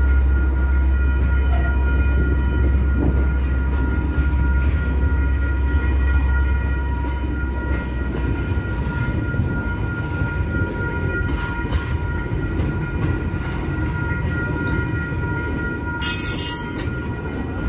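Container freight train's wagons rolling through a level crossing: a rumble and rattle of steel wheels on the rails, with steady high-pitched ringing tones over it. The deepest rumble eases off about halfway through, and there is a short hiss near the end.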